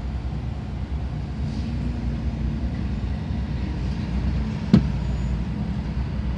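Vehicle engines rumbling low and steady in a slow road-traffic queue, with one sharp knock about three-quarters of the way through.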